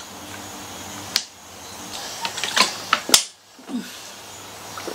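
Drinking water from a plastic mineral-water bottle: swallowing, the thin plastic crackling in the hand, and several sharp clicks, the loudest about three seconds in.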